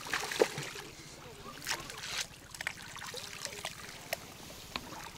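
A hooked silver carp splashing at the surface close to the bank as it is played in, with irregular sharp splashes and knocks.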